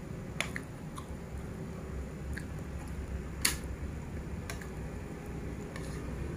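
A person chewing food while a metal spoon clicks and scrapes against a plate several times as more food is scooped up; the sharpest click comes about three and a half seconds in.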